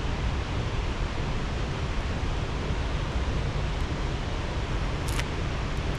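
Steady rushing noise, with one short click about five seconds in.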